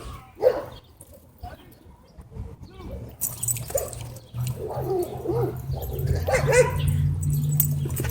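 Dogs barking and whining in short bursts as they play-fight, getting louder and busier over the second half.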